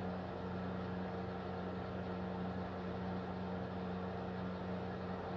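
Steady low machine hum with a few fixed tones, unchanging throughout and with no handling sounds standing out.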